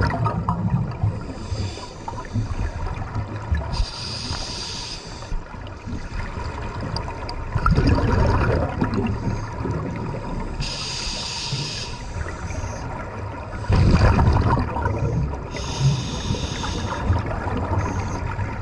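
Scuba divers breathing underwater on open-circuit regulators. Each breath brings a short hiss of the regulator on the inhale, then a low rumbling burst of exhaust bubbles on the exhale, about every six seconds.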